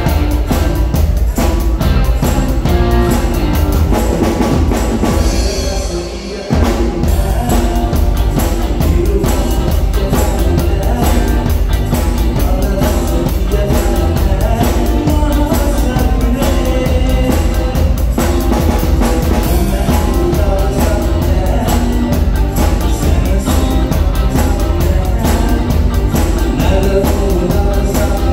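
Live band playing: a drum kit with a steady bass-drum beat under keyboard and guitar, with a male singer at times. About six seconds in the music briefly thins and drops, then the full band and drums come back in sharply.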